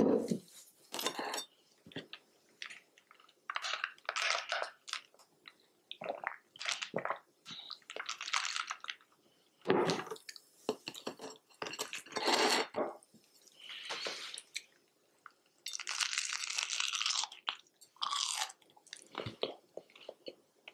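Close-miked eating and drinking: sips of a pale green drink through a straw with the glass handled on a table, and bites and chewing of a toasted sandwich, heard as separate short bursts with quiet pauses between them.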